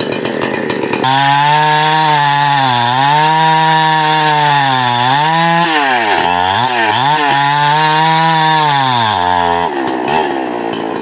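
Two-stroke chainsaw held at high revs, its steady whine sagging in pitch a few times and wavering up and down about halfway through, then dropping away near the end.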